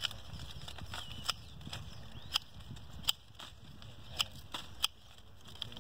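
Side shoots being cut or snapped off a young soursop tree during pruning: a series of short, sharp clicks, about seven, roughly a second apart.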